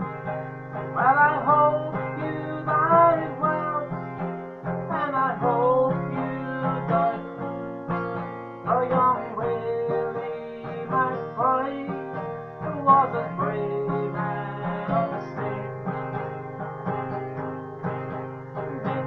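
A man singing a folk ballad while strumming an acoustic guitar.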